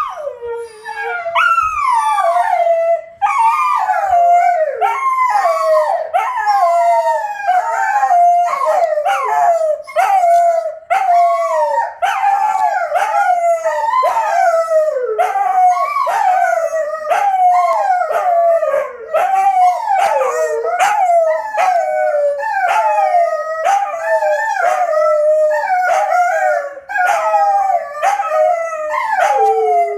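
Wolfdogs howling loudly without a break: a long string of short howls, each sliding down in pitch, coming about once a second and overlapping one another.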